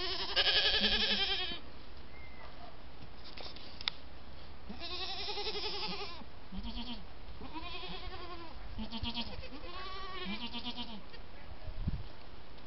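Goats bleating again and again: a run of wavering calls, the loudest right at the start, with shorter, lower-pitched calls in between.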